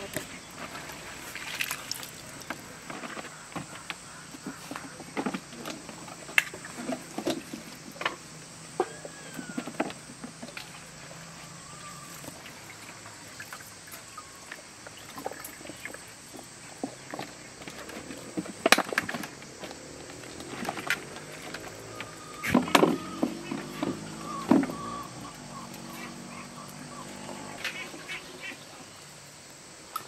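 Pieces of raw cauliflower and vegetables being handled in a metal pot and pressed by hand into large glass jars: scattered knocks, rustles and light clinks. A few animal calls sound in the background, most of them about three quarters of the way in.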